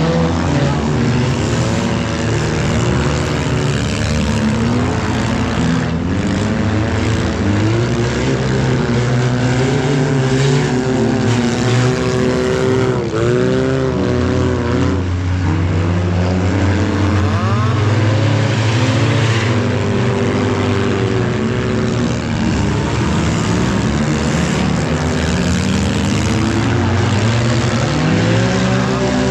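Engines of several junk cars racing on a dirt track, overlapping as they rev up and ease off again and again.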